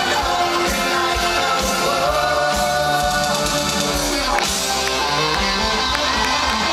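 Live rock band playing on stage, with a singer holding long notes over drums, bass and keyboards.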